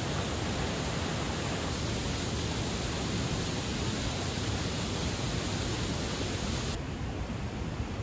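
Steady rushing noise with no distinct events, heaviest in the lows; it turns slightly duller near the end.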